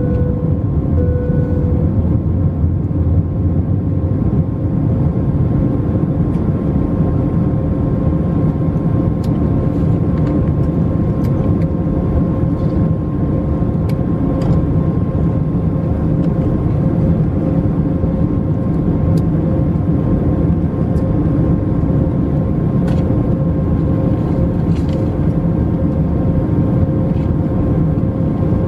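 Airbus A321 cabin noise in flight: the steady drone of the jet engines and rushing air with a constant hum. A short on-off tone sounds a few times in the first two seconds.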